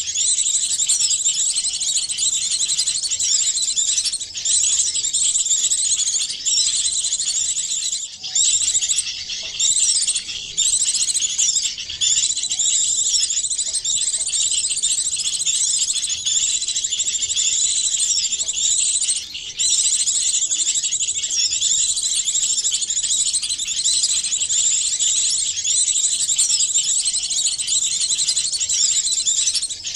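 Dense, high-pitched chorus of many small songbirds' chirps, trills and quick sweeping whistles layered over one another without a break: a composite lure track mixed from several small birds' calls to draw small birds in.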